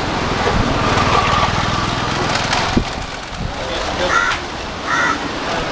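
A crow cawing twice in the second half, short harsh calls about a second apart, over a low rumble that fills the first half.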